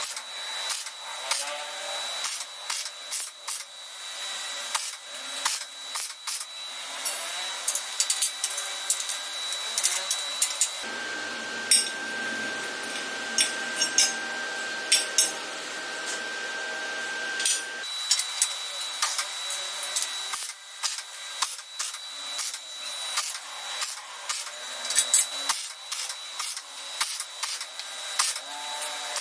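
Workshop tool work: many sharp clicks and ticks over a steady high whine. About 11 seconds in, the sound changes to a steadier, deeper tone for about seven seconds, then the clicking returns.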